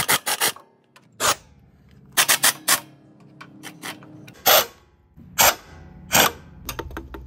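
Impact wrench run in a string of short bursts, a fraction of a second each, as it tightens the belt tensioner bolts on a stump grinder to take up slack in loose, slipping drive belts.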